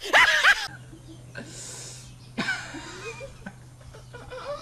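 A laugh sound effect, a fast run of repeated high laughing notes, cuts off abruptly under a second in. It gives way to quieter breathy human laughter over a steady low electrical hum.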